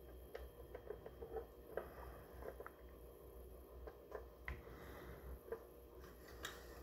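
Faint, scattered clicks and light taps from hands handling a plastic box and a plastic welding rod held against its hinge.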